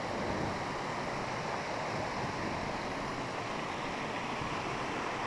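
Small waterfall cascading over rocks close by: a steady, even rush of falling, splashing water.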